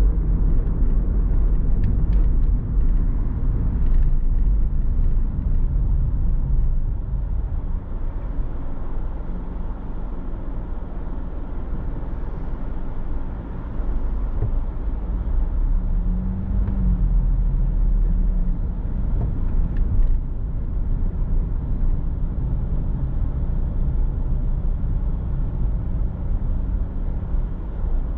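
A car being driven: a steady low rumble of engine and road noise, with a few faint clicks near the start.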